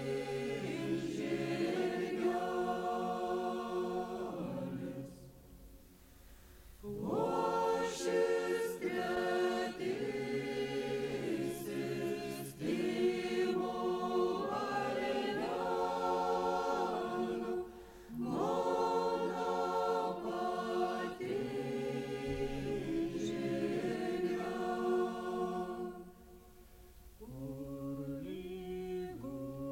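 Lithuanian folk ensemble singing unaccompanied in several voice parts, long held notes sung in phrases, with a pause of about two seconds some five seconds in and another near the end.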